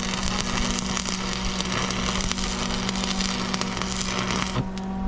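Stick welding arc crackling steadily as a bead is run to fill a hole in a split PTO shaft, cutting off abruptly about four and a half seconds in. A steady low hum runs underneath.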